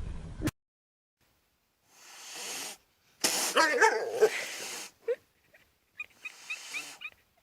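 A pet animal's cry, wavering in pitch for about a second and a half, with a few short high chirps near the end.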